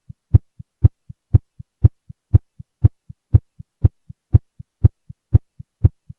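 Normal human heart sounds heard through a stethoscope's diaphragm at 120 beats per minute during exercise. A loud first heart sound alternates with a quieter second heart sound at even spacing, since at this rate systole and diastole are about equal. The strong first sound is the sign of the increased heart action of exercise.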